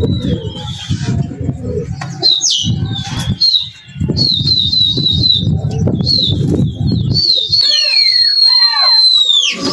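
Shrill whistling as the pigeons are driven up: a quick run of short high whistles about halfway through, then near the end a long held high whistle with falling glides, over bursts of low rushing noise from wind and flapping.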